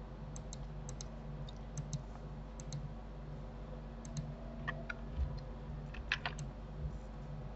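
Computer mouse and keyboard clicks: several paired mouse-button clicks in the first half, then a cluster of louder key presses and clicks a little past the middle, as a loop cut is made in Blender. A steady low hum runs underneath.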